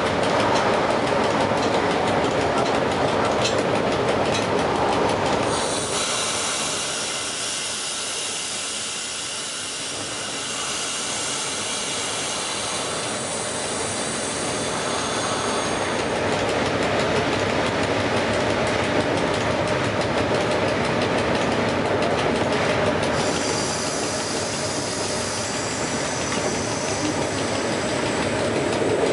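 Running noise inside the cab of an EU07 electric locomotive moving along the track: a steady rumble and hiss. A brighter, higher hiss comes in about six seconds in and again in the last quarter.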